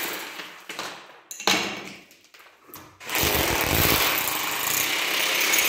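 Power tool running in bursts: it fades out at the start, gives a short burst about a second and a half in, stops, then runs steadily from about three seconds in.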